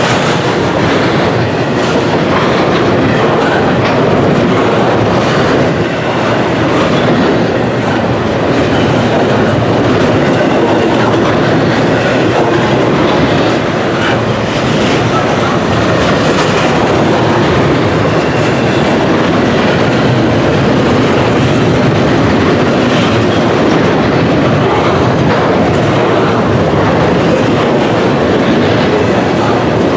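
Double-stack intermodal freight train's container cars rolling past close by: a steady, loud noise of steel wheels on the rails, with scattered clicks.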